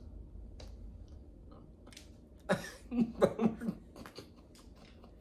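A person chewing a bite of food, with faint mouth clicks. About two and a half seconds in comes a quick run of short throat noises that are louder than the chewing.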